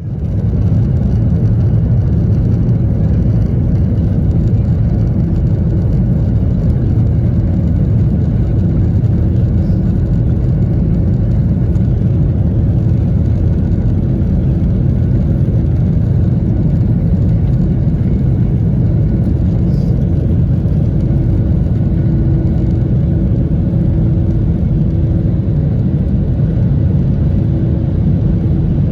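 Steady, loud rumble of a Boeing 737-900ER's cabin, heard from a window seat: the engines running, with airflow and a faint steady hum.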